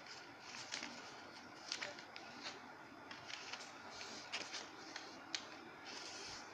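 A sheet of printer paper being folded and creased by hand, rustling with scattered short crackles as the folds are pressed flat.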